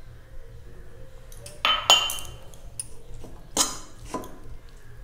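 A metal fork clinking and scraping against a stainless steel strainer while oiled boiled noodles are tossed: a few sharp clinks, the loudest about two seconds in.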